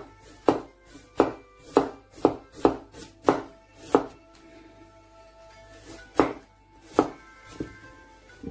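Chinese cleaver slicing a carrot on a thick round chopping board: sharp knocks of the blade hitting the board, about eight in the first four seconds, a pause, then two more. Quiet background music.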